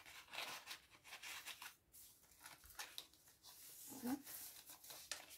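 Faint rustling and scraping of paper: card stock and a lined paper card sliding in and out of a paper pocket in a handmade journal, with soft taps as the pages are smoothed down.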